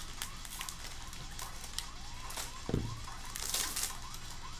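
Foil trading-card pack wrapper crinkling as it is handled and torn open, with a rustling burst about three and a half seconds in.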